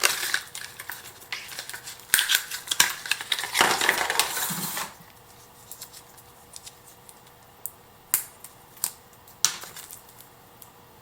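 Rustling and clattering as an outdoor smart plug is lifted out of its packaging and handled. About five seconds in it goes quieter, leaving a few sharp taps of the plug's plastic housing or cord.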